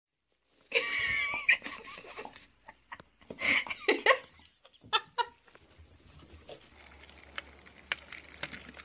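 Pit bull giving a few short, drawn-out yowling vocalizations, about a second in, around three and a half seconds in and again near five seconds, mixed with a person laughing.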